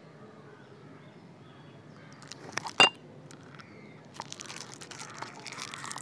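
Small clicks and clatter from hands working a plastic inline switch and its wires. One sharp click comes nearly three seconds in, followed by a run of light clicks and rustling.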